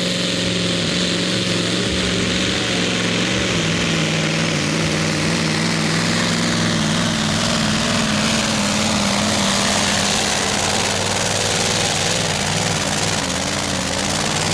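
Magirus Deutz supersport pulling truck's diesel engine running under heavy load as it drags a weight sled, its pitch holding nearly steady with a slight waver.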